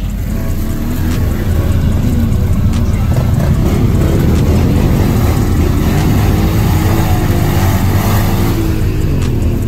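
ATV and side-by-side UTV engines revving under load as they climb through deep mud; the engine noise grows louder about a second in.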